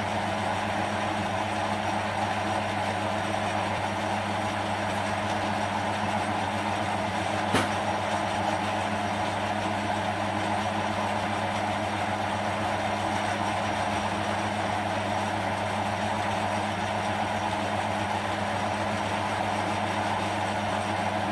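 Small metal lathe running steadily while drilling a fine hole through the centre of the workpiece, a constant motor hum with the whir of the spindle and drill, and one sharp tick about a third of the way in.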